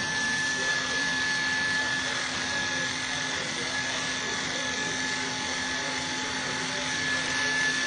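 Corded electric hair clippers running with a steady buzz as they cut hair short on top of the head.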